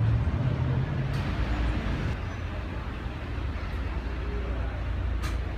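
Low, steady rumble of car engines running, with a humming tone through the first two seconds and a few faint clicks.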